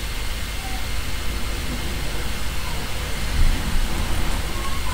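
Steady hiss with a low rumble underneath: background noise picked up by the recording microphone. There is a brief low bump about three and a half seconds in.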